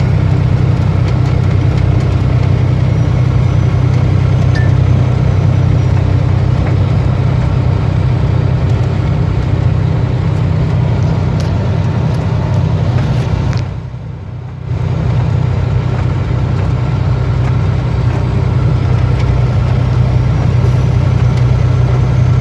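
Semi-truck engine droning steadily from inside the cab while driving. The level dips for about a second partway through, then returns.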